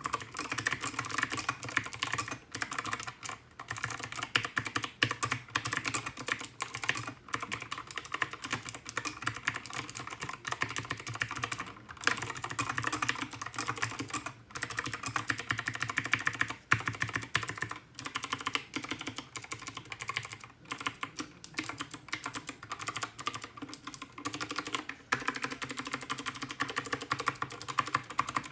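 Continuous fast typing on an HK Gaming GK61 mechanical keyboard with Gateron Blue clicky switches: a dense stream of sharp key clicks, broken by a few brief pauses.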